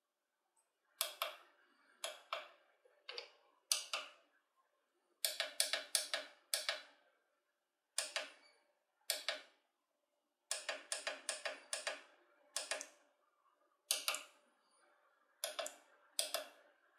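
Push buttons on a pulse counter's keypad being pressed: a long series of sharp clicks, some single, some in quick runs of several presses.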